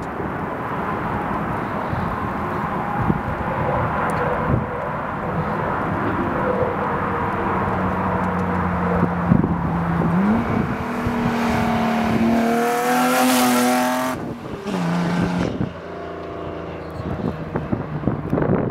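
BMW 325 exhaust on a fly-by. The engine note builds as the car approaches under acceleration, rises sharply in pitch and is loudest as it passes, then cuts off abruptly. A lower, fading note follows as the car drives away.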